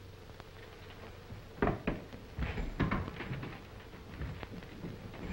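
Knocks and scraping bumps of a wooden chair as a man drops into it and shifts it, in two clusters about one and a half and two and a half seconds in, with a few lighter bumps later. A steady hum and hiss of an old film soundtrack runs underneath.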